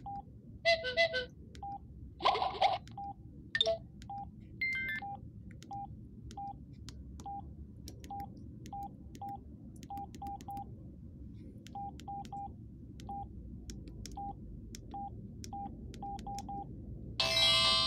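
Samsung SGH-S500 mobile phone's keypad beeps: short beeps, all at one pitch, at irregular intervals as its keys are pressed. There are a few louder, noisier bursts in the first few seconds, and a ringtone melody starts near the end.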